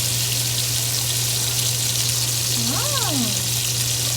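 Vegetables frying in a pan: a steady sizzling hiss over a low steady hum.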